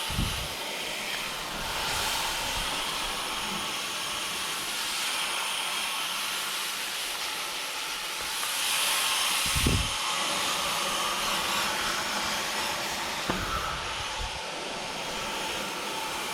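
Garden-hose water spraying steadily through the fins of a Goodman air-conditioner condenser coil, a constant hissing spray, with a few dull thumps along the way. The unit is switched off at the disconnect while the coil is rinsed.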